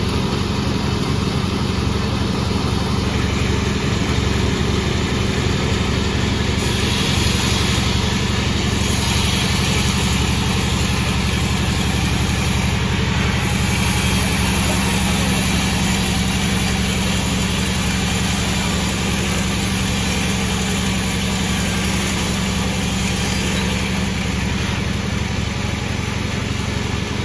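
Sawmill machine running steadily with a low hum. A high hiss joins about a quarter of the way in and fades near the end, as the saw works through a sonokembang log.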